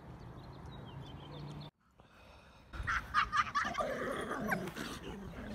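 About three seconds in, huskies play-fighting start growling and whining, in short calls whose pitch bends up and down.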